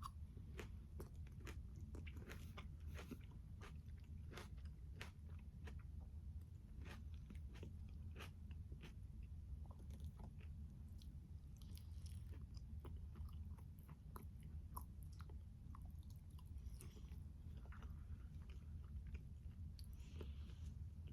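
Close-miked chewing and biting of a tomato, peach and basil salad: soft, wet, irregular crunches and mouth clicks over a low steady hum.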